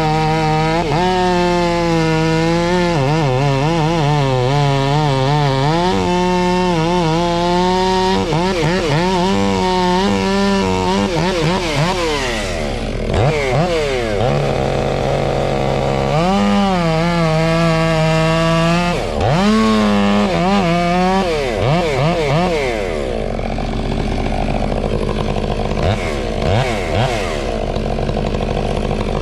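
Two-stroke chainsaw running at high revs through wood, its pitch sagging and recovering as the chain bites. Twice, about halfway through and again past two-thirds, it briefly drops off and revs back up. Near the end it is a little quieter and less steady.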